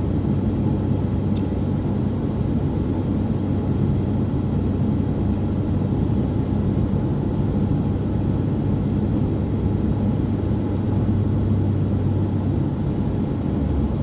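Steady engine and road rumble of a moving vehicle, with a constant low hum.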